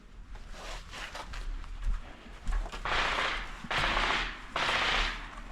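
Airsoft gunfire: a few scattered pops, then three short bursts of rapid fire about a second apart in the second half.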